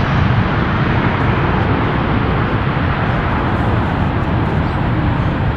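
Jet airliner engines making a loud, steady noise.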